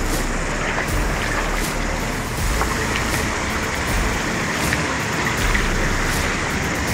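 Fast river water rushing steadily through boulder-strewn rapids.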